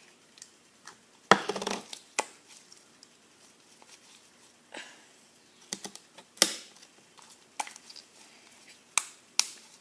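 Homemade glue-and-Tide slime being scraped off a bowl and a hand: scattered short sticky clicks and knocks. The louder ones come about a second and a half, six and a half and nine seconds in.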